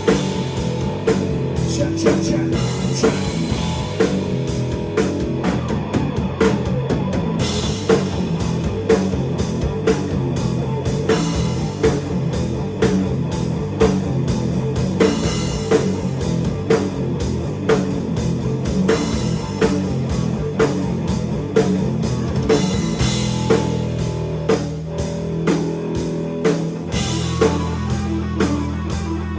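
Rock band playing: guitar over a drum kit keeping a steady beat, with sustained bass notes in the last few seconds.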